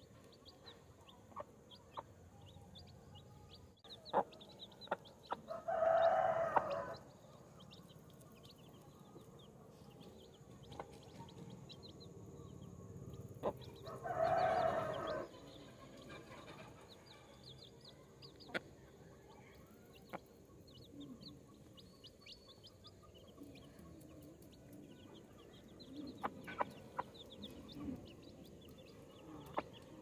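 Baby chicks peeping in short, high chirps throughout. Two longer, louder calls from an adult chicken come about six and fourteen seconds in, with a few sharp clicks between.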